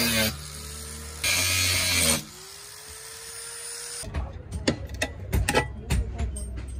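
Angle grinder cutting through a rusty old circular saw blade in two loud bursts; each time the disc comes out of the cut, the motor's whine rises in pitch as it spins free. About four seconds in, this gives way to a string of sharp metal knocks and clanks as the cut steel piece is handled.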